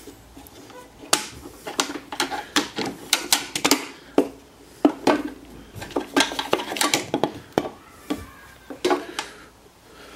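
Irregular clicks, clacks and knocks of quick-release bar clamps being loosened and pulled off, and a wooden block being handled and lifted off a metal drill press table.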